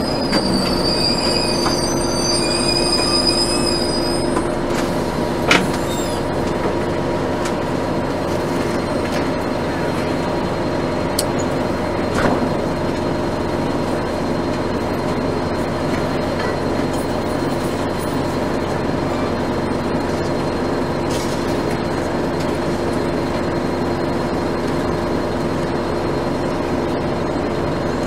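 Inside the cabin of a 1996 NovaBUS RTS transit bus, its Detroit Diesel Series 50 four-cylinder diesel running steadily with a droning hum. A high-pitched squeal rides over it for the first four seconds or so, and there are two sharp knocks, about five and twelve seconds in.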